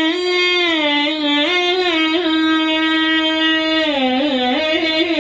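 A male munshid's voice singing one long held note of a Shia mourning chant (latmiya), a drawn-out melisma without words that breaks into wavering ornaments about four seconds in.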